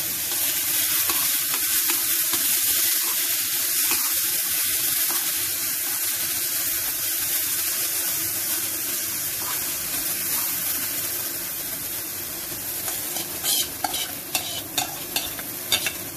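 Grated raw mango frying in hot oil in a pan: a steady sizzle with a spoon stirring through it. Near the end, a quick run of sharp metal clinks.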